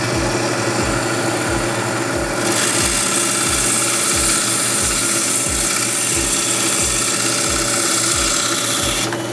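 Small benchtop band saw running steadily; about two and a half seconds in, the blade starts cutting through dense Duncan coral skeleton with a loud hiss, which stops just before the end.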